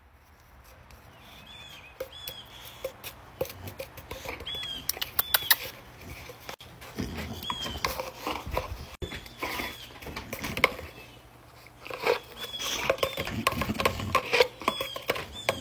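A dog snapping and mouthing at a cardboard tube held out to it: a string of sharp taps and clicks of teeth and paws against cardboard and deck boards, mixed with the dog's own noises. The sound gets busier and louder near the end as the dog bites at the tube with its mouth wide open. Short high chirps recur throughout.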